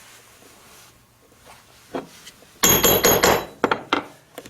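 Hammer striking a leather stitching punch to drive it through leather: a single tap about two seconds in, then a quick flurry of ringing metal taps, then a few more single taps.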